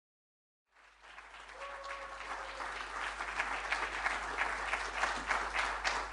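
Audience applauding: many hands clapping, fading in about a second in and growing louder. A brief steady tone sounds under the clapping about a second and a half in.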